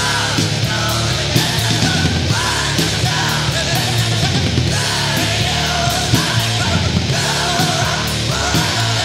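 Loud heavy rock music with a yelled vocal line over bass and steady drum hits.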